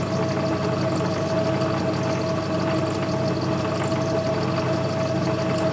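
Myford Super 7 lathe running at a steady speed: a steady machine hum with one clear constant whining tone.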